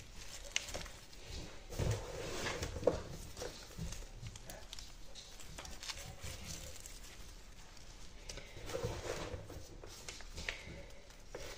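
Gloved hands adding potting soil to a plant pot and pressing it down: soft, uneven rustling and patting with a few light knocks.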